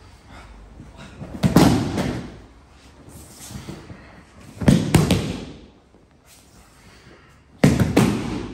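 Bodies landing on tatami mats as partners are thrown in kneeling aikido practice: three heavy thuds about three seconds apart, each a quick double impact.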